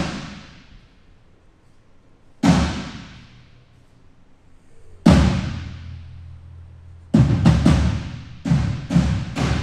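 A drum on a drum kit struck on its own for a sound check: three single hits about two and a half seconds apart, each ringing out low, then a run of quicker hits about seven seconds in.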